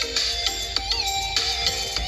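Background music: a steady beat under a bright melody.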